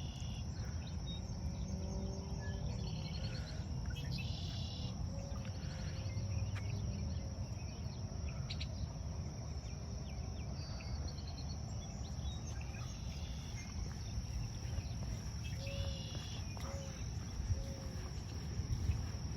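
Outdoor ambience: a steady high-pitched insect trill, with a few short bird chirps about one second in, at about four and a half seconds, about ten seconds and about sixteen seconds, over a low steady rumble.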